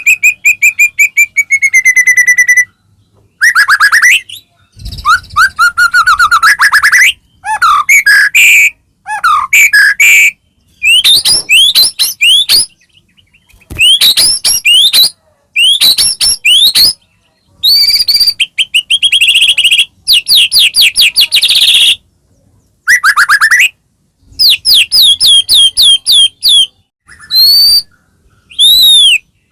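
White-rumped shama singing loudly: a long run of varied phrases of rapid whistled notes, sweeping slurs and fast trills, each lasting one to three seconds with short pauses between.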